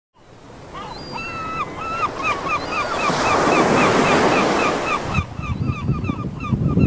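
Sea waves washing on a shore while a gull calls: a few long notes, then a run of quick short calls, about four a second. The surf swells to its loudest near the middle, and a little past five seconds the sound changes abruptly to a lower rumble with wind on the microphone.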